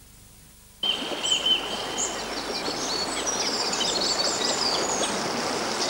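Near silence for under a second, then the steady rush of a shallow river flowing over stones starts suddenly. Birds chirp and trill over the water.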